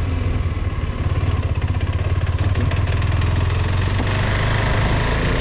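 KTM 390 Adventure's single-cylinder engine running at low, steady revs while being ridden, a fast even throb.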